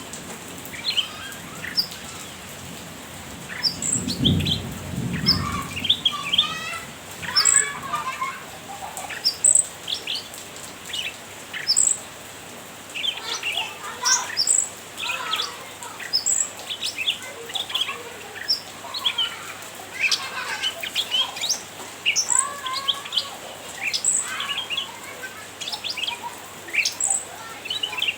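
Cucak ranting bulbul calling busily, with rapid chattering ('nyrecet') and short chirps, and a sharp high note repeating every second or two. A brief low rumble sounds about four seconds in.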